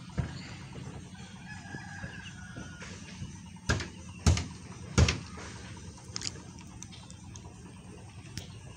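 A rooster crowing in the background, with three loud sharp knocks about two-thirds of a second apart around the middle.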